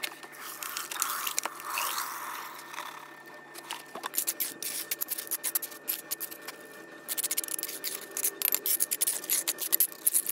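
Wet mortar sliding out of a bucket into the hollow cores of a concrete block, then a steel trowel scraping and smoothing mortar across the block's top. The scrapes come in a quick, gritty run that gets busier in the last few seconds.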